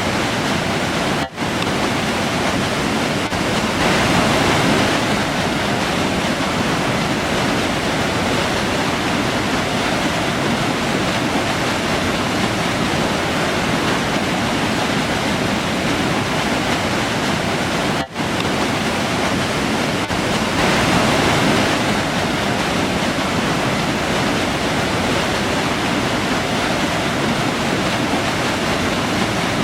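Forest river rushing: a steady, even roar of flowing water, briefly cut for an instant about a second in and again about eighteen seconds in.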